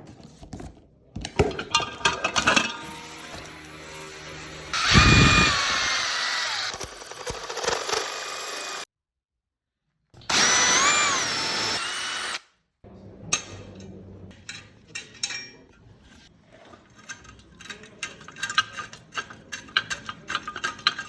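Power drill running in a few short runs, its motor whine rising and falling in pitch as it speeds up and slows down. It breaks off abruptly twice. Later comes a string of small clicks and scrapes from hand work.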